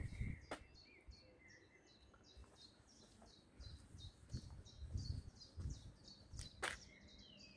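Faint bird chirping: a short high note repeated about three times a second, with a few low thumps and a couple of sharp clicks.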